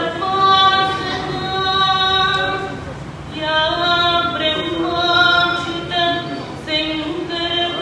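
A woman singing solo into a microphone, without accompaniment, in long held notes that step from one pitch to the next, with short pauses for breath.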